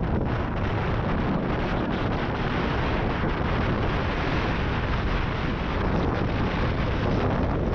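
Wind buffeting the microphone of a camera riding along on a moving mountain bike: a loud, steady rushing noise.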